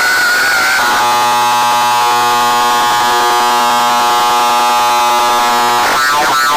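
Sound-system loudspeakers blasting electronic effects at full volume: a wavering high tone, then a long steady buzzing horn tone for about five seconds, then fast warbling siren sweeps near the end.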